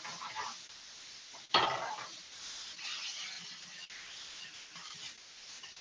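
Bitter melon and tofu stir-fry sizzling in a hot frying pan while it is stirred and tossed with a wooden spatula, with scraping against the pan. There is a single loud knock about a second and a half in.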